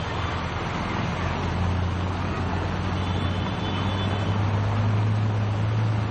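Motor vehicle engine running with a steady low hum, louder near the end, over a continuous wash of traffic noise from vehicles driving through a flooded street.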